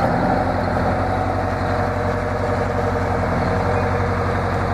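Semi-truck tractor's diesel engine idling steadily.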